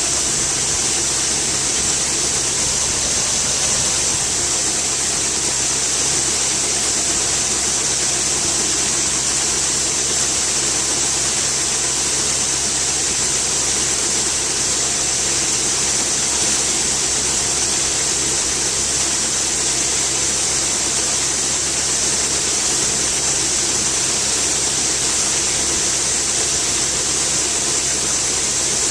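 Farm machine's diesel engine running steadily under a loud, even hiss, with a low hum underneath and no change throughout.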